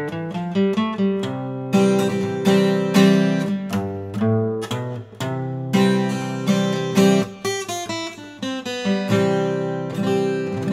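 Acoustic guitar playing a simple melodic phrase from the C major scale in first position, picked notes with open strings ringing on.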